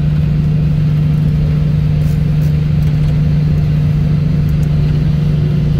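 Light aircraft's piston engine and propeller running steadily, heard inside the cockpit during the landing roll-out, with one strong low droning tone over a rumble.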